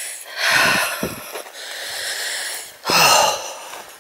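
A person breathing heavily close to the microphone: two loud breaths, one about a second in and one near the end, with quieter breathing between them.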